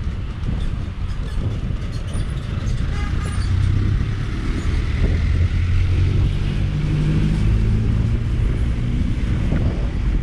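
Wind rumbling on the microphone and road noise from an electric scooter riding through night traffic. A motor vehicle's engine hum grows louder from about the middle on.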